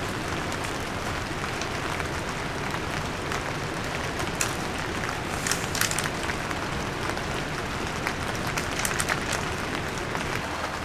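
Rain falling on a tent shelter: a steady hiss with scattered sharper ticks of drops striking, coming in small clusters around the middle and again later on.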